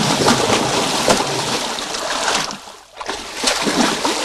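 A hooked muskie thrashing and leaping at the water's surface: two long stretches of splashing with a brief lull about three seconds in.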